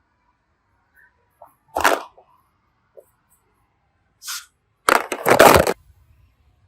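Sharp cracking and crackling in bursts: one short crack about two seconds in, a brief one after four seconds, and a louder run of crackling around five seconds, like plastic packaging being snapped or crushed by hand.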